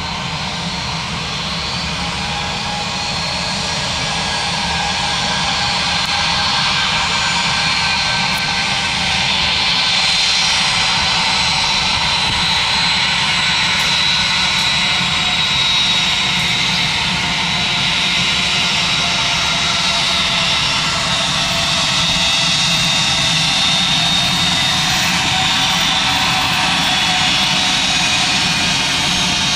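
Airbus A320's jet engines running at taxi power: a steady rushing noise with a high whine that wanders slightly in pitch, growing louder over the first several seconds and then holding.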